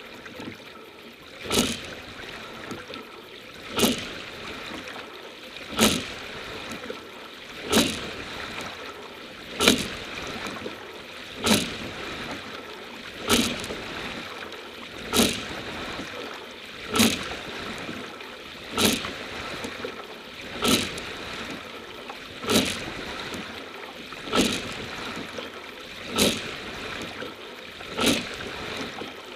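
Racing double scull under way: a sharp knock and splash of the sculls at each stroke, about every two seconds, over a steady rush of water along the hull. The strokes come slightly closer together towards the end as the stroke rate is built up.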